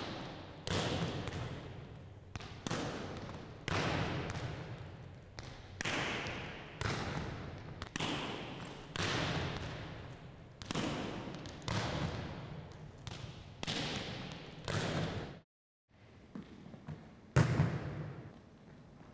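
A run of sharp thuds from a volleyball drill at the net, about one a second, each ringing on in the gymnasium's echo. Near the end the thuds stop, and after a short gap one louder thud comes.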